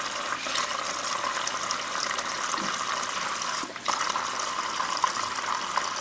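Water from a Samsung refrigerator's door dispenser pouring steadily into a partly filled plastic tub, flushing air and old water out of the line after a new water filter was installed. The flow dips briefly once, about two-thirds of the way through.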